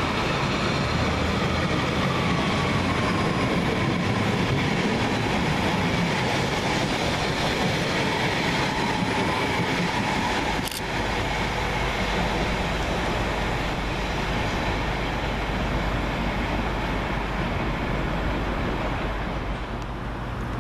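Pair of Class 331 electric multiple units running along the platform: a steady rumble of wheels and running gear with a faint whine that falls slightly in pitch over the first few seconds. A sharp click comes about eleven seconds in, after which the low rumble changes.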